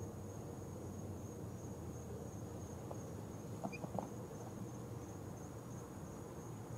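Faint background of sleeping two-week-old chicks in a brooder, with a steady high-pitched trill and a low hum underneath. About halfway through come a few soft rustles and a brief high peep.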